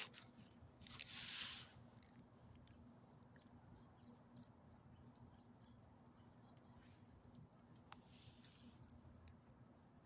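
Faint clicks and crunches from a small dog nosing and nibbling at scattered debris on asphalt, with a brief rush of noise about a second in.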